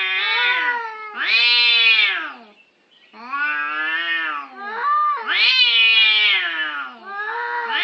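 Domestic cats caterwauling in a territorial standoff before a fight: long, wavering yowls one after another, with a short break a little under three seconds in.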